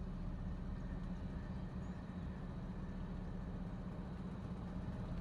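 Boat motor running steadily under way, a low even drone.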